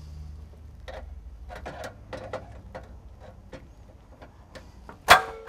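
Handheld power screwdriver tightening a terminal screw on a bus bar: its motor hums briefly at the start, then a string of irregular mechanical clicks follows. About five seconds in comes one loud sharp clack with a short metallic ring, the loudest sound.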